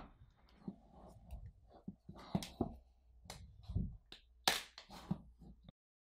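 Hands handling the iPhone 8's cardboard retail box to open it: scattered taps, clicks and light rustles of cardboard and packaging. The sound cuts off abruptly near the end.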